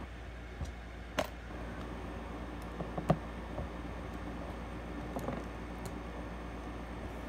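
Plastic Lego bricks clicking as they are handled and pressed together: a few scattered short clicks, the loudest about three seconds in, over a steady low hum.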